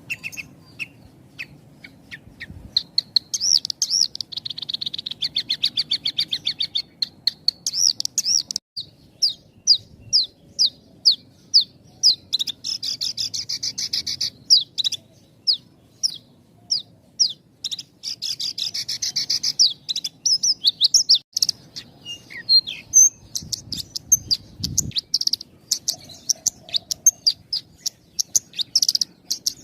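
Javan bush lark (branjangan) singing a long, continuous song of rapid high chirps, slurred notes and dense buzzy trills, with only very short pauses between phrases.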